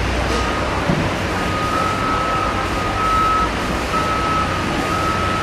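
A vehicle's reversing alarm beeping about once a second over the steady rumble and clatter of construction-site machinery, with a short knock about a second in.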